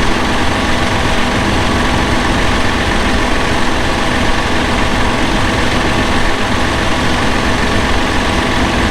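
Tractor's diesel engine running loudly and steadily, pulling a ripper through the soil.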